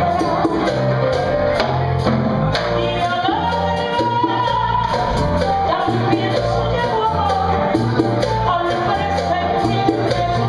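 Live Latin band music: a woman sings a melody into a microphone over electric bass and percussion, with the bass moving in a steady rhythmic pattern.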